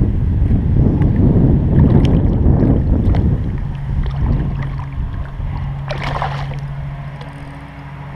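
Wind buffeting the microphone at first, then a hooked sheepshead splashing briefly at the kayak's side about six seconds in. A steady low hum starts about halfway through.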